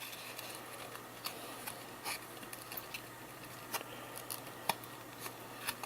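Trading cards being handled and sorted by hand: faint rustling with scattered light clicks and taps of card stock.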